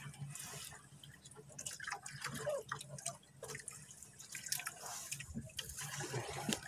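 Sea water dripping and lapping at a small boat, in irregular small splashes and ticks.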